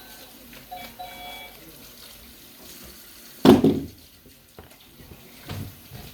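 Wet squelching of homemade slime being squeezed and handled, with one louder squish about halfway through and a smaller one near the end.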